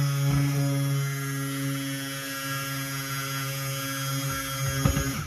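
Electric stick blender running submerged in cold-process soap batter, a steady motor hum, as the oil and lye mix thickens toward trace. A few knocks sound just before the motor cuts off near the end.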